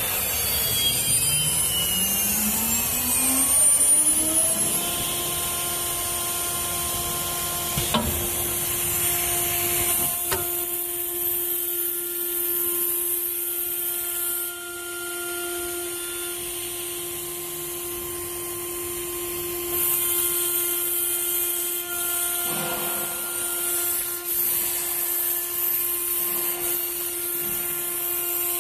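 CNC router spindle spinning up with a rising whine over the first few seconds, then running at a steady high pitch while it cuts acrylic sheet. Hissing cutting noise comes and goes, with a couple of sharp clicks.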